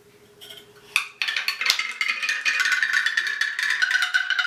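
Wooden marble-run tree toy: balls drop from leaf to leaf down its staggered wooden leaves. A sharp knock comes about a second in, then a fast, continuous clatter of wooden clicks, each ringing with a short tone.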